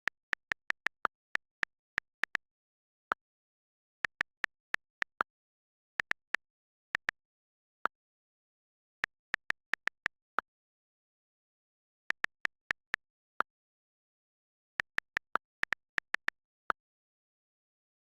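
iPhone on-screen keyboard clicks while texting: sharp, short clicks in quick runs, like words being typed, with pauses of about a second between the runs.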